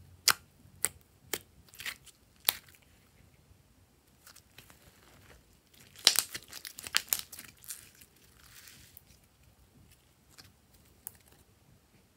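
Glossy slime being handled with fingers: sharp clicking pops about twice a second as it is poked and pressed, then a dense run of crackling about six seconds in as it is pulled and stretched.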